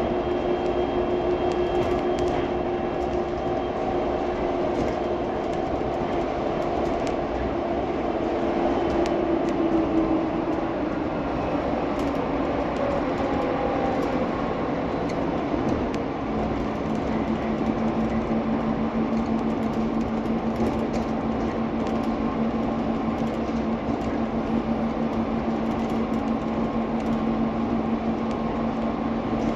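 Phoenix Sky Harbor Sky Train, a rubber-tyred Bombardier Innovia automated people mover, running along its guideway, heard from inside the car: a steady running noise with an electric motor whine. The whine slides down in pitch about ten seconds in, then holds at a lower steady tone.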